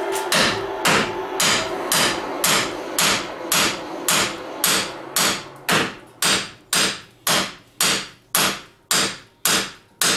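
Hammer blows on the metal roof-lift mount at a truck camper's corner, struck in a steady rhythm of about two a second, each blow ringing briefly. The blows are meant to knock loose a stuck mount and steel backer plate.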